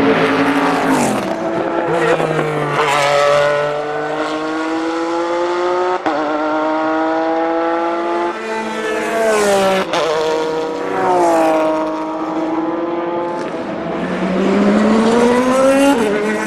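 Porsche 996 GT3 RSR's naturally aspirated flat-six racing engine under full throttle, climbing in pitch through quick upshifts with brief cuts. About ten seconds in the pitch falls as the car brakes and downshifts, then it climbs again as the car accelerates out.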